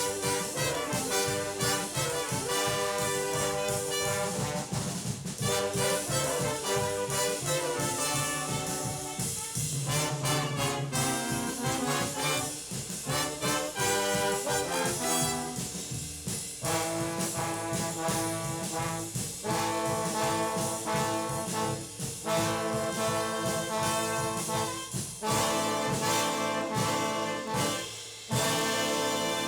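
Junior high school stage band, a big-band jazz ensemble, playing with the brass section of trombones and trumpets to the fore, on a 1969 LP recording.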